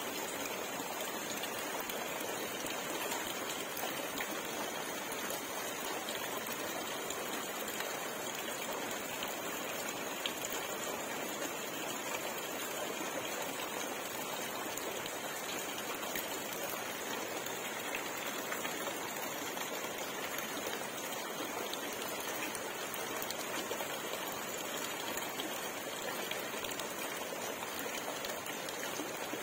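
Water pattering and splashing steadily onto the surface of a fish pond, with no breaks.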